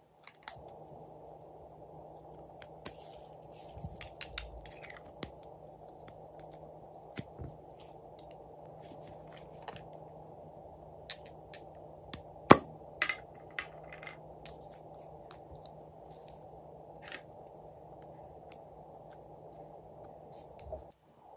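Scattered light clicks and taps from small plastic glitter containers being handled, with glitter and confetti shaken onto slime in a plastic tray. One sharper tap comes about twelve seconds in, over a steady low hiss.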